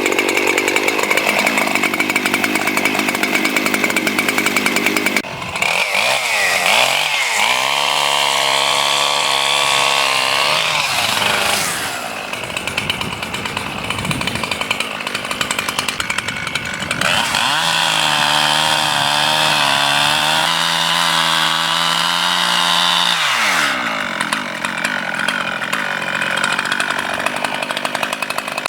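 Two-stroke chainsaw cutting into a dead oak, switching between stretches of loaded cutting and stretches of running free at high revs, with its pitch sliding up and down as the throttle changes.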